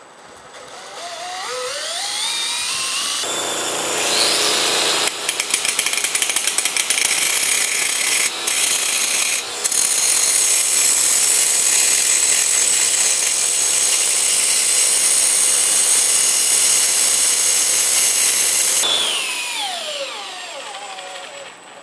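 Angle grinder's disc grinding the steel shaft of a meat-mincer auger while a cordless drill clamped in a vise spins the shaft, turning the shaft down in diameter so it will fit a drill chuck. The tools spin up with a rising whine, then a loud, steady hissing grind runs for about fourteen seconds, and the whine falls away as they wind down near the end.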